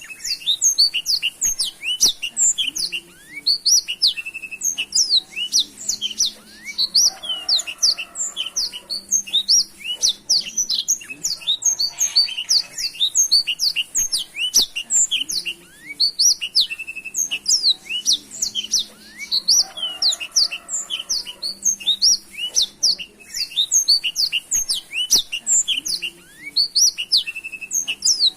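Black-throated canary (blackthroat) singing a long unbroken song of fast, varied, high twittering notes with quick up-and-down sweeps. It is singing at full, vigorous pace.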